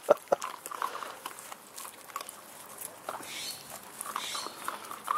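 Puppies at play: a few short, high yips in the first half-second, then quieter scuffling and small play noises.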